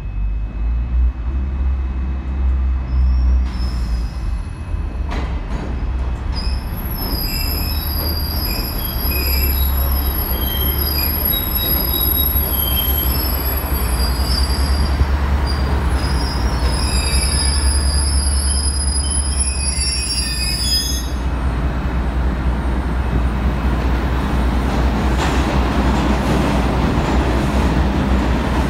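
MTA subway track inspection car running into an underground station: a low rail rumble throughout, with high-pitched wheel squeal from about four seconds in until about twenty-one seconds. After the squeal stops, the car's rolling noise goes on and grows louder as it passes close alongside the platform.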